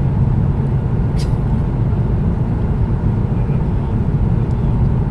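Steady roar of a Boeing 777-200ER airliner in cruise, heard inside the economy cabin: engine and airflow noise, deep and unchanging. A faint click about a second in.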